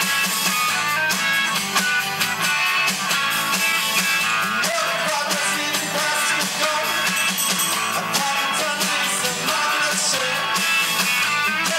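Rock music: electric guitar over drums, with a steady beat.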